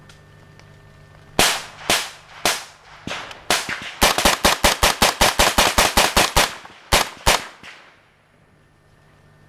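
Gunfire: a few single shots about half a second apart, then a rapid string of shots for about two and a half seconds, then two more single shots, each with a short echo.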